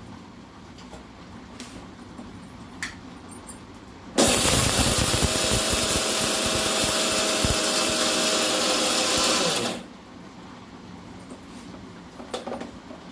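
Electric mixer grinder (mixie) dry-grinding sun-dried ingredients to powder in its jar: it starts suddenly about four seconds in, runs steadily for about five and a half seconds, then cuts off. A few light clicks and taps come before and after it.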